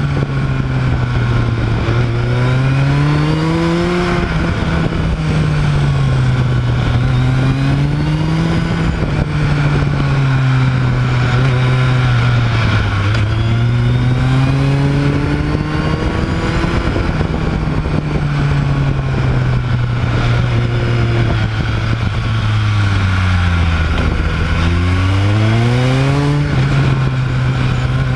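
Motorcycle engine on the move through mountain bends, its pitch climbing under throttle and dropping back again and again as the rider accelerates out of curves and shifts or eases off into them, over a steady rush of wind and road noise. Near the end the revs fall low and then climb steeply.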